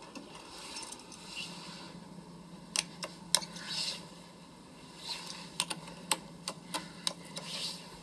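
Sharp clicks of elevator car push buttons being pressed, about ten spread over the middle and end, over a low steady hum in the car, with a little rustling.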